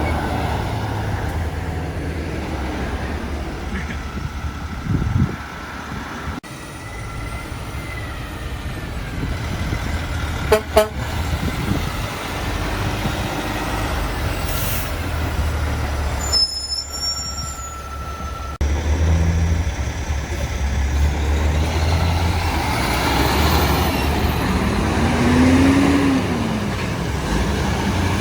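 Semi trucks and other traffic passing on a highway: steady engine and tyre noise, with one engine's pitch rising and then falling near the end.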